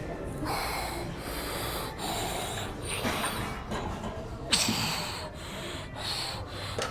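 A lifter's forceful breaths during a set of barbell squats: about five short, hissing exhalations, roughly one every second or so.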